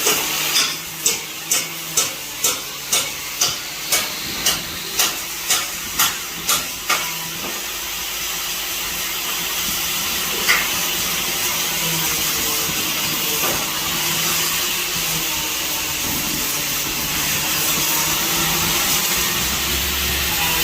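Steady crackling hiss of electric arc welding on steel. About a dozen sharp knocks, roughly two a second, sound over it in the first seven seconds, and one more sharp click comes about ten seconds in.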